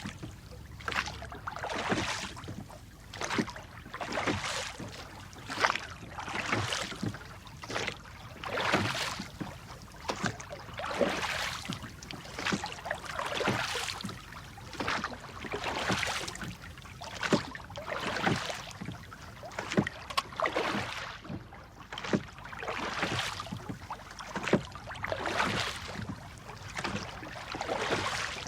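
Oars of a rowboat dipping and pulling through water in a steady rhythm, a splash every second or two, with occasional sharp knocks among the strokes.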